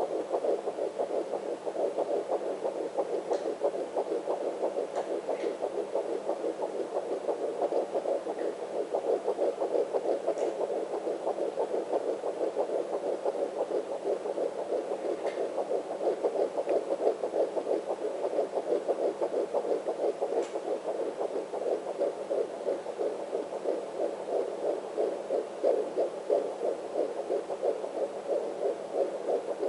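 Unborn baby's heartbeat picked up by a handheld home fetal Doppler and played through its speaker: a fast, steady run of pulsing beats.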